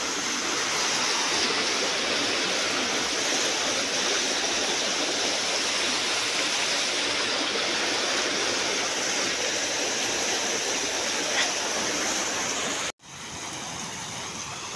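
Irrigation canal water rushing through and under the sluice gates: a steady, even rush of water. It breaks off for an instant near the end and comes back quieter.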